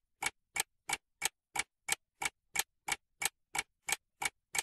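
Steady, evenly spaced ticking, about three sharp ticks a second.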